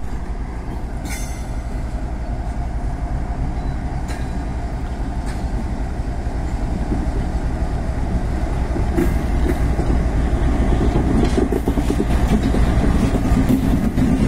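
A WDG4G freight locomotive's EMD two-stroke V16 diesel engine running as the locomotive hauls a train of wagons past. Its deep rumble grows steadily louder as it draws close, with a few sharp clicks.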